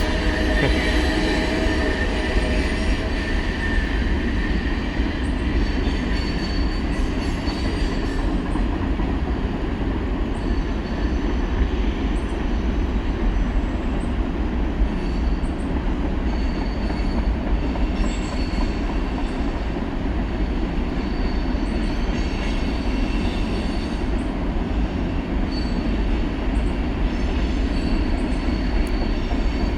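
Freight train cars rolling past with a steady rumble, with short high-pitched wheel squeals recurring every few seconds.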